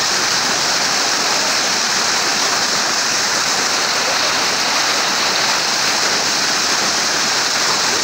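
Waterfall rushing and splashing down a rock face close by: a steady, unbroken rush of water.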